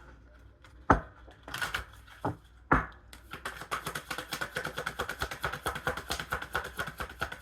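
Tarot cards being handled: a few sharp card snaps, then from about three seconds in a quick, even run of clicks as the deck is shuffled.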